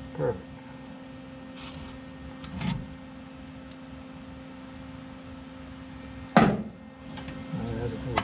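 A steady electrical hum, with a few knocks of metal parts and tools being handled. The loudest, sharp knock comes about six seconds in.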